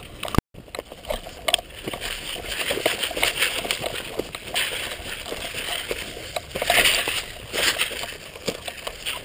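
Footsteps crunching and dry grass and brush rustling against the body of someone moving through undergrowth, an irregular crackle with sharper snaps, loudest about seven seconds in. The sound drops out for an instant about half a second in.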